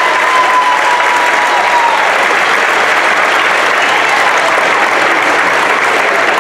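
Auditorium audience applauding steadily. One voice holds a long cheer over the clapping that trails off about two seconds in.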